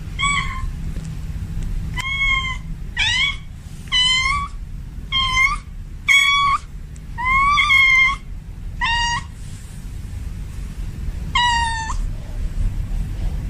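Tomcat in heat meowing repeatedly, calling for a female: eight short meows about a second apart, then one more after a pause of a couple of seconds.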